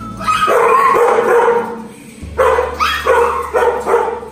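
Dog barking: one long drawn-out bark, then a quick run of about five short barks.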